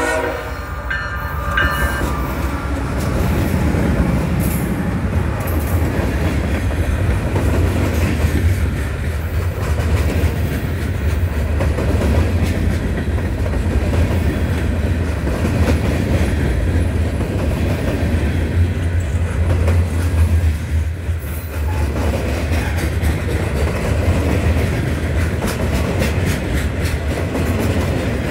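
Diesel freight train passing close by: the locomotive horn cuts off right at the start, then the locomotives and a long string of freight cars roll past with a steady low rumble and wheel clatter on the rails.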